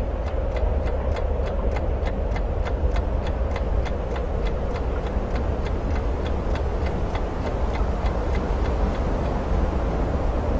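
Steady clock-like ticking, about three ticks a second, over a low rumbling drone; the ticks fade away near the end.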